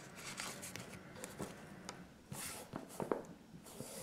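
Faint handling noise: soft rustling of a fabric frame bag and a plastic-wrapped battery pack being pushed into it, with a few light clicks. There are two longer rustles about two and a half and three and a half seconds in.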